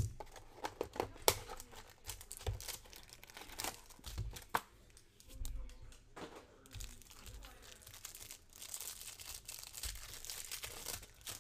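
Plastic wrapper on a pack of football trading cards crinkling and tearing as it is pulled open by hand, with scattered clicks and taps from handling the pack. The crinkling is densest near the end.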